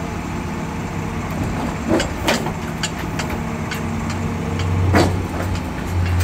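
Truck diesel engine running under PTO load, driving the hydraulics of an IMT 5525 knuckle/telescopic service crane as the boom extends. The low steady hum grows heavier about four and a half seconds in. Several short sharp clicks and clunks from the crane sound over it, the loudest about five seconds in.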